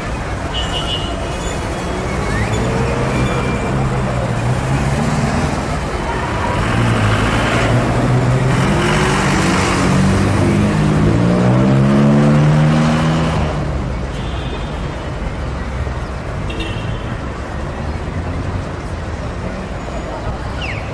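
Street traffic: a heavy vehicle's engine running, then rising in pitch as it speeds up, loudest a little past the middle before it fades, over steady street noise.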